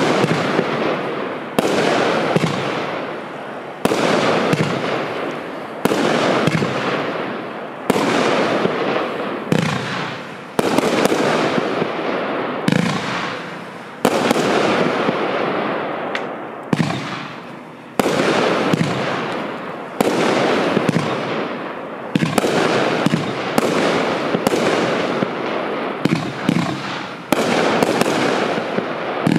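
A 29-shot, 500-gram fireworks cake firing shot after shot, one every second or two. Each shot is a sudden bang that trails off over a second or two before the next one.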